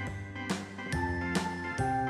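Background music for a children's song: a bright, tinkling melody over sustained notes and a bass line, with a regular beat of about two and a half strokes a second.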